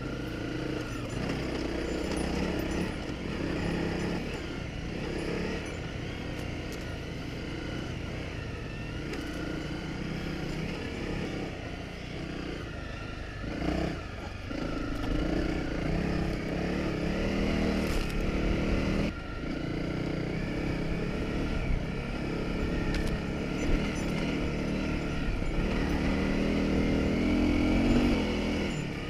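Honda CRF250 Rally's single-cylinder four-stroke engine running as the motorcycle rides a dirt track, the revs rising and falling with the throttle. A couple of sharp knocks come through in the second half.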